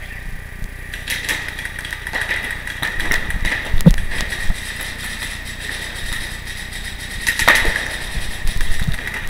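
Paintball game sounds: an irregular clatter of marker shots and knocks over a steady low rumble, with the busiest stretches about three and a half seconds in and again near the end.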